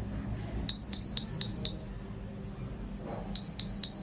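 Nothing Phone (1) ringtone playing from the phone's speaker: a run of five short, high pings, about four a second, then a pause of over a second before the same run starts again near the end.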